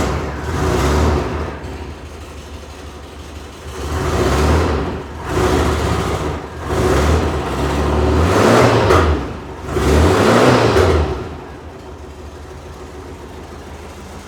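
A VW bus's air-cooled flat-four engine, just started, is blipped through about five revs that rise and fall. It then settles into a steady idle for the last few seconds.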